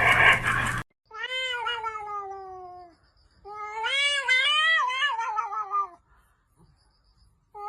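A domestic cat giving two long, drawn-out meows: the first falls in pitch, the second is longer and wavers up and down. Before them, a short stretch of hissy noise cuts off abruptly under a second in.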